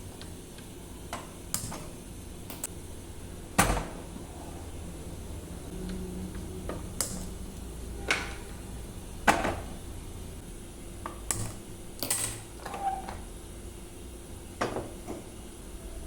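Kitchenware being handled: dishes and utensils clinking and knocking about a dozen times at uneven intervals, over a low steady hum.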